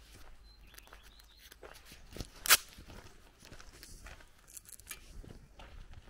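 Footsteps of a walker on a dirt path. About two and a half seconds in there is one loud, sharp click, just after a fainter one.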